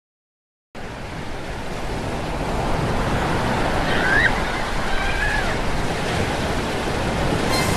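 Sea surf washing onto a rocky shore, a steady rush of waves that starts about a second in and slowly grows louder. A couple of faint short high chirps sound midway.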